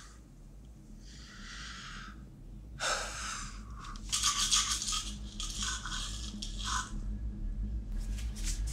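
A man breathing hard in uneven bursts of gasps and exhales, over a low drone that grows steadily louder.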